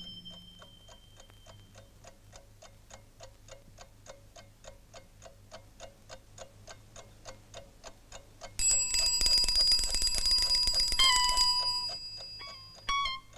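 Alarm clock ticking quickly and steadily, then its bell ringing loudly for about three seconds, starting about eight and a half seconds in.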